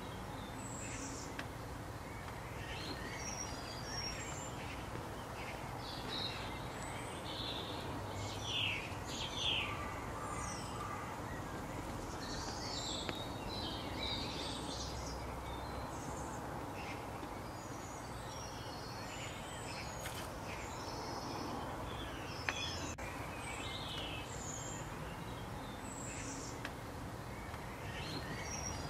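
Woodland birds chirping and calling, many short high calls scattered throughout over a steady background hiss of outdoor ambience.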